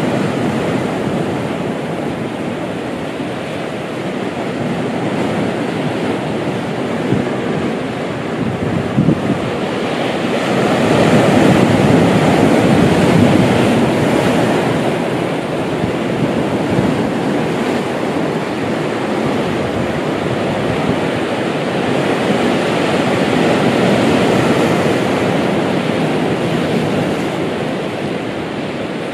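Surf washing onto a rocky shore, a steady rush that swells louder and eases off as the waves come in, with some wind on the microphone.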